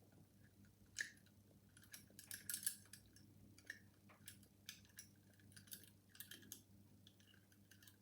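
Metal lock-picking tools working inside a worn five-lever mortice deadlock: faint, irregular metallic clicks and short scrapes as the wire pick lifts the levers against the tension tool, loudest in a scratchy cluster about two and a half seconds in.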